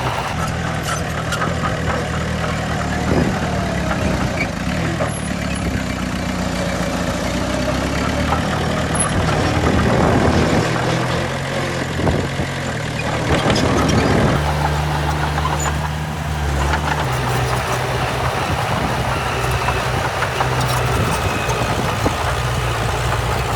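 Diesel engine of heavy earthmoving machinery running, its note shifting partway through, with rougher, noisier stretches in the middle.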